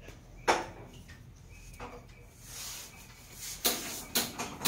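A few sharp clicks and knocks: a single one about half a second in, then a quick run of four near the end.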